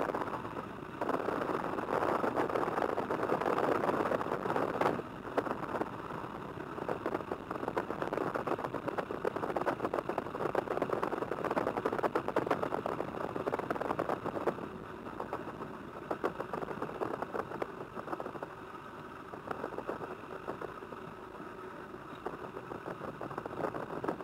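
Tiger Moth's four-cylinder Gipsy Major engine running at low taxi power, heard from the open cockpit with rattling from the airframe. Louder for the first few seconds, it drops a little after a sharp click about five seconds in.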